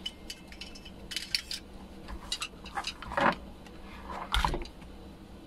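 Handling noise from a circuit board and small parts being moved on a workbench: scattered light clicks and clatter, with two louder bumps about three and four and a half seconds in.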